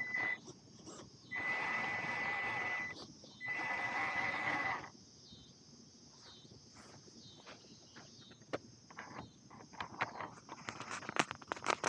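Traxxas TRX-4M RC crawler driving in three short runs of about a second and a half each, its electric motor giving a steady high whine over gear and tyre noise. From about eight seconds in, crackling rustles and steps in grass grow louder toward the end.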